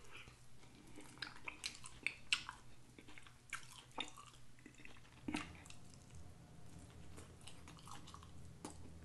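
Close-up mouth sounds of a man eating bone-in chicken wings: wet chewing, biting and smacking, with many short, irregular clicks as meat is pulled from the bone.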